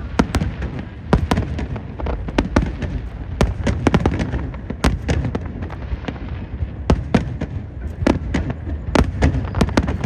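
Fireworks display: many sharp bangs and cracks, several a second and irregularly spaced, over a continuous low rumble.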